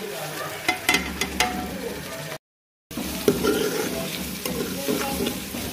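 Spices tipped from a steel plate into onions frying in ghee, then a spoon stirring the metal pot: steady sizzling with sharp clicks and scrapes of the spoon against the pot. Briefly cuts to silence a little past halfway, then the stirring and sizzling go on.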